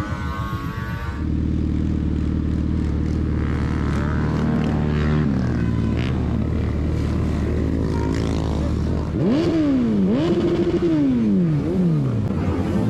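A vehicle engine idles steadily. From about nine seconds in it is revved several times, the pitch shooting up and falling back each time.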